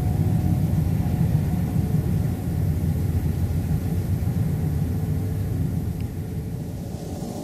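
Deep, steady rumbling drone that eases off a little toward the end.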